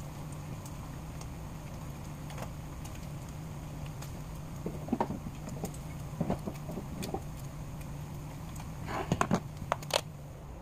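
Bacon frying in a nonstick skillet, a steady sizzle over a low hum, with clusters of sharp pops and clicks about halfway through and again near the end.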